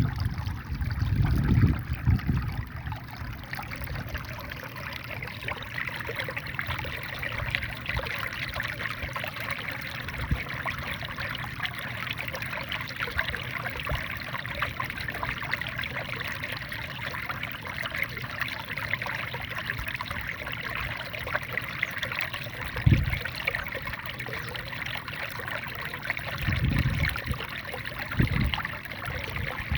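Water from a small rice-field waterfall running and splashing steadily. A few brief low rumbles of wind on the microphone come about a second in and again near the end.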